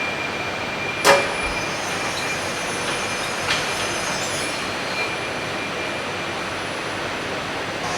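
Steady machinery running, with a thin high whine held throughout and a few sharp knocks, the loudest about a second in.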